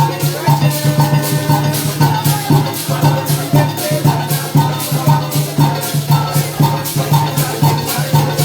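Live parang music: maracas shaking a brisk, even beat over a pulsing bass line.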